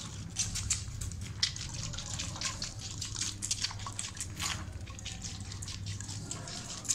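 A chinkara fawn suckling milk from a hand-held feeding bottle, with irregular sucking and smacking clicks.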